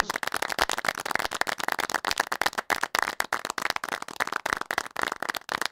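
A dense, rapid patter of many small, sharp clicks at a steady level.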